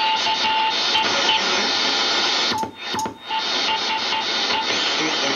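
Morse code (CW) tone keyed on and off in dots and dashes over steady band hiss from a National NC-183D tube communications receiver on 40 meters. The hiss cuts out briefly twice, with clicks, about two and a half to three seconds in.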